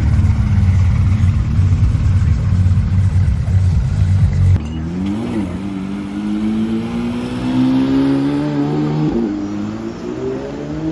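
Porsche engine sound. First a loud, steady low engine note, which cuts off abruptly about four and a half seconds in. Then an engine accelerates with its pitch rising, dips briefly about nine seconds in, climbs again and fades near the end.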